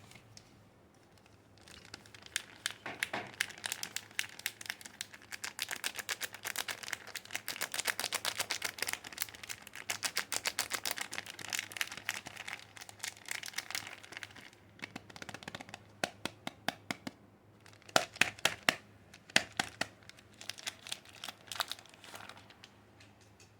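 Soap packaging being unwrapped by hand: dense crinkling of the wrapper that thins out about two-thirds of the way through into scattered crackles, with a few sharper snaps.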